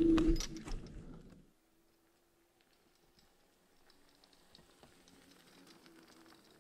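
KugooKirin G3 electric scooter's rear hub motor whining steadily under way, loud at first and fading out about a second and a half in. After that there is only a faint whine and light ticking and crackling of tyres over the dirt forest trail.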